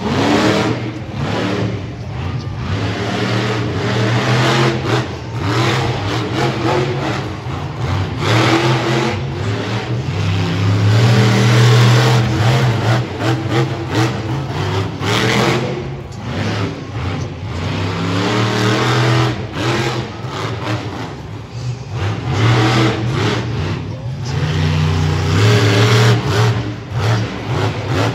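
Monster truck engine revving hard again and again through a freestyle run, its pitch climbing and falling back in repeated surges.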